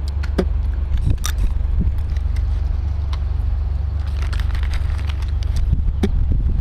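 Gas airsoft pistols and shotguns firing a handful of scattered sharp shots, the sharpest a little over a second in and another near the end, over a loud steady low rumble.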